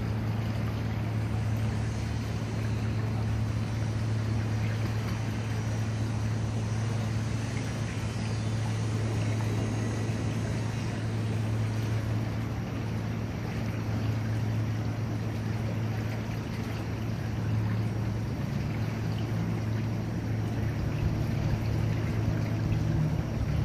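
A steady low engine hum under a constant rushing noise, running evenly without a change in pitch.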